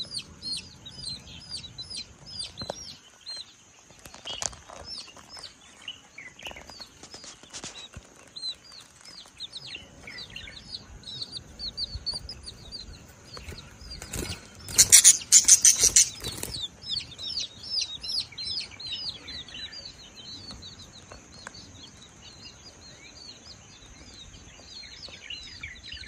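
Baby chicks peeping over and over: many short, high, falling peeps, with a steady high whine beneath. Midway comes a loud burst of rapid rustling that lasts about two seconds.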